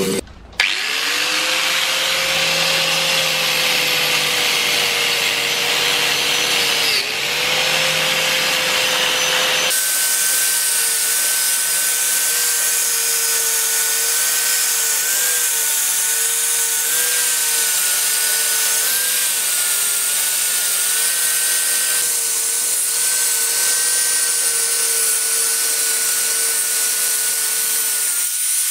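A bench grinder's wire wheel runs and brushes rust off a metal roller shaft, its pitch sagging briefly under load. About ten seconds in, this gives way to a higher-pitched angle grinder with a wire cup brush scrubbing rust from a steel blade, its whine wavering slightly as it is pressed against the metal.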